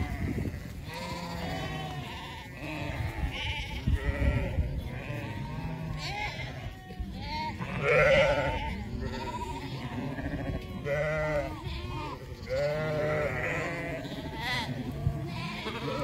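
A large flock of sheep bleating, many overlapping calls at different pitches following one another throughout, over a steady low rumble.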